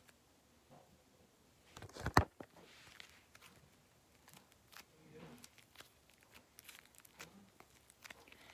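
Handling noise: scattered small clicks and rustles, with one loud knock about two seconds in.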